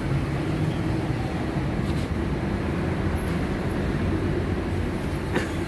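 Steady low rumble of street traffic, with a faint steady hum.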